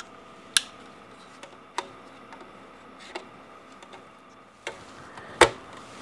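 A few separate sharp clicks from handling the DX3021 TQFP100 clamshell socket adapter on a Xeltek SuperPro 6100N programmer as its lid is pressed shut over the chip; the loudest click comes near the end.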